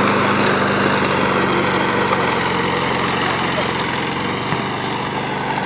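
Petrol lawn mower engine running at a steady speed, an even, unchanging hum.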